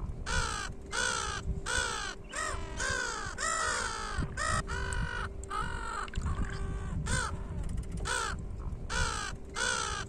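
A flock of brown-headed gulls calling: harsh, arched, crow-like cries, about two a second and overlapping, over a faint steady hum.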